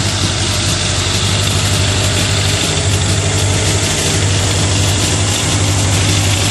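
Yamaha YZF1000's inline-four engine idling steadily, its carburetors uncovered with the airbox off, hooked up to vacuum gauges for carburetor synchronization.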